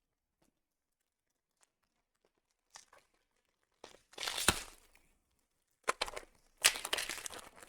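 Plastic wrapper of a trading card pack being torn open and crinkled by hand: a few light ticks, then two bouts of tearing and crackling, the second from about six seconds in.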